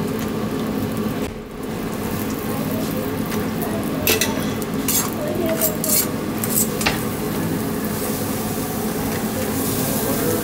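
Butter sizzling and hissing as it is spread with a knife over hot Turkish toast sandwiches on a ridged contact grill, over a steady low hum. About four to seven seconds in come a handful of sharp metal clicks: tongs and the knife against the grill plate.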